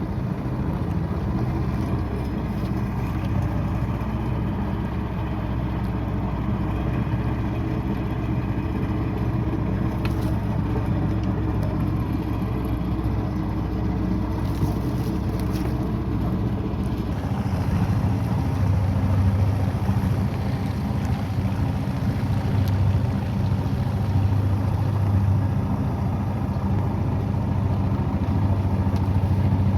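A small boat's engine running steadily under way, its low hum growing louder and heavier a little over halfway through.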